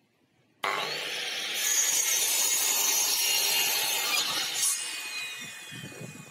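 Metabo sliding mitre saw starting about half a second in and cutting through a wooden beam; near the end the motor is switched off and the blade winds down with a falling whine.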